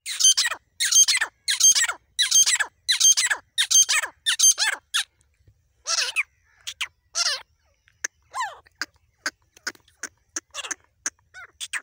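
Grey francolin calling: a run of about eight loud, harsh calls, roughly three every two seconds, then shorter, scattered calls and clicks from about five seconds in.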